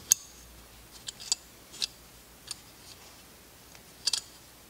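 A drill bit gripped in vice grips, turned by hand, clicking and scraping in a piston's oil return hole as it works through carbon and varnished oil clogging the hole. A few sharp irregular ticks, the loudest right at the start, the rest scattered a second or so apart.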